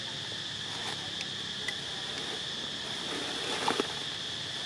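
Steady, high-pitched insect chorus from the forest. A couple of short clicks stand out about three and a half seconds in.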